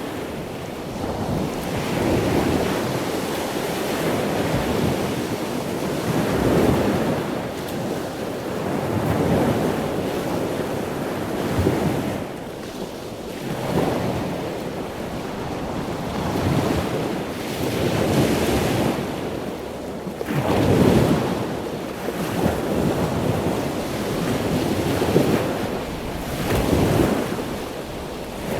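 Ocean surf: waves rushing in and washing back, swelling and falling in irregular surges every few seconds.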